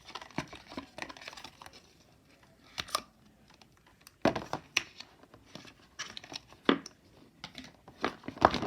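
Paper packaging of an Apple Watch box being handled: crinkling and tearing rustles with scattered clicks, in several short bursts.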